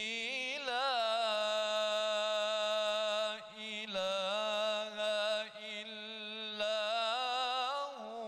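A man reciting the Quran in a melodic chanted style through a microphone and loudspeakers, holding long ornamented notes with brief breaks between phrases.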